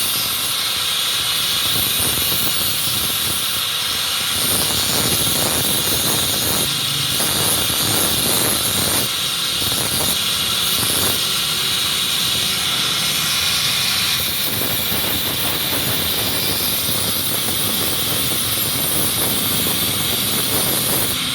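Steel knife blade being sharpened against an abrasive, giving a steady, high grinding hiss. Through the middle stretch it breaks into quick scraping strokes.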